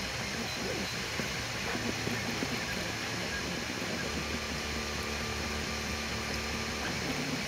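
Desktop FDM 3D printer running mid-print: its stepper motors whir in tones that shift as the print head and bed move, over a steady fan noise.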